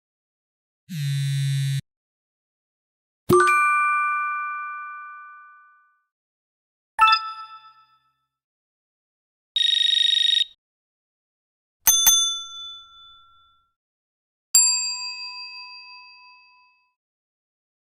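A series of separate notification alert sound effects with silence between them: a one-second buzz, a bell-like ding that rings out, a short chime, a steady high beep, a double-struck ding, and another ding fading away.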